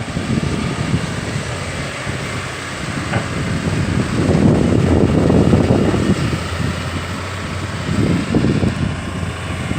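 Excavator engine running steadily, with louder rumbling surges about four to six seconds in and again briefly near the end.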